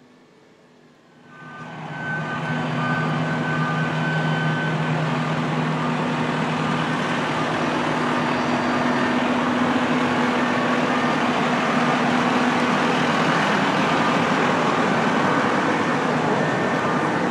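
Fire ladder truck's diesel engine running steadily and loud while its aerial ladder is raised, starting suddenly about a second in.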